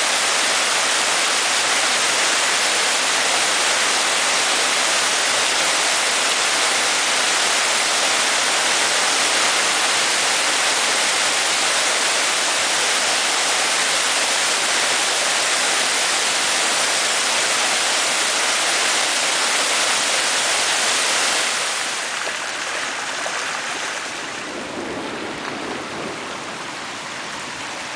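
Mountain stream in spate after a heavy storm, rushing over rocks in white-water cascades: a loud, steady rush of water. About 22 seconds in it gives way to a quieter, lower rush of muddy floodwater running across a dirt track.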